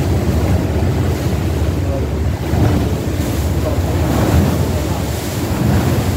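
Wind buffeting the phone's microphone on the open deck of a moving sightseeing boat, over a steady rush of water along the hull.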